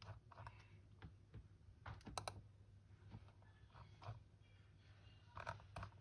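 Faint, scattered clicks from a computer being operated, a few at a time. The clearest come about two seconds in and again near the end, over a quiet steady low hum.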